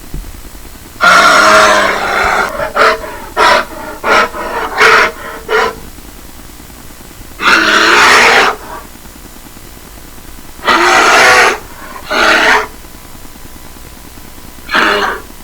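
Bear roaring and growling in repeated calls, most about a second long, with a run of short, quick grunts between about two and six seconds in.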